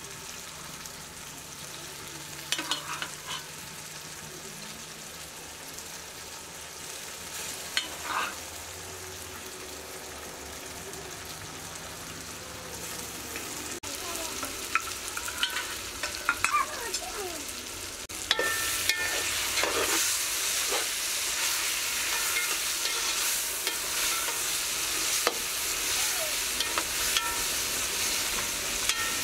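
Meat and chopped tomatoes frying in a metal pot over a wood fire, with a spoon scraping and clinking against the pot as they are stirred. The sizzling grows louder about two-thirds of the way through.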